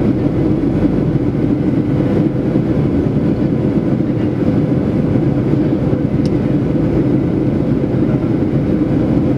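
Steady cabin noise of a Boeing 737-800 in flight, heard from a seat over the wing: CFM56-7B engine and airflow noise with a steady hum running through it.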